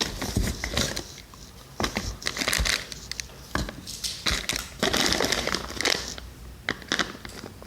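Packaging in a shipping box being handled and unpacked: irregular crinkling, rustling and crunching of plastic wrapping and cold packs, with sharp clicks and knocks in between.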